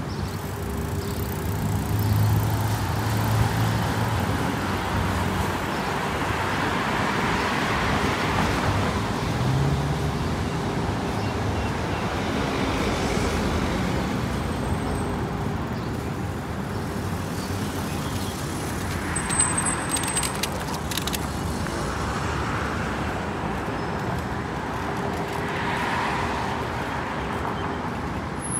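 Road traffic on a city street: a steady wash of engine and tyre noise, with several cars growing louder as they pass close by and then fading.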